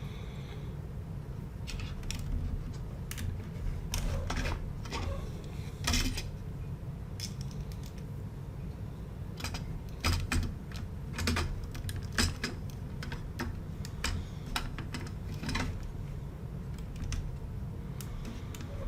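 Loose plastic Lego pieces clicking and rattling as they are handled, in irregular clicks over a steady low hum.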